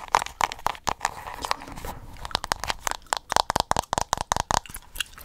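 Chewing gum close to the microphone: a dense run of sharp clicks and crackles.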